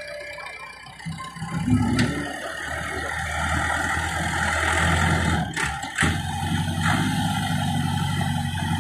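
Diesel tractor engine running and working, louder from about a second and a half in. A few sharp metallic clanks come through near the middle.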